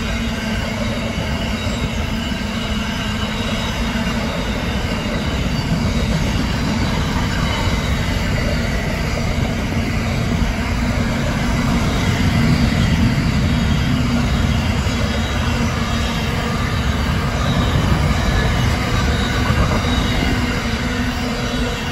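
Container wagons of a long intermodal freight train rolling past close by: a steady rumble and clatter of steel wheels on the rails, with a thin high squeal from the wheels.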